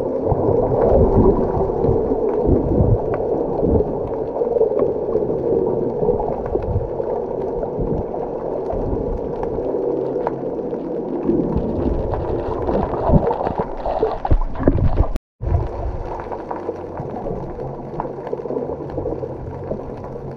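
A boat under way: a steady engine drone with water churning and splashing along the hull. The sound cuts out for a moment about fifteen seconds in.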